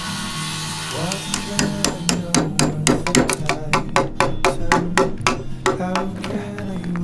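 A chisel struck by a hammer in a quick, even run of blows, about four a second, paring down the end of a wooden post. The blows start about a second in and stop shortly before the end.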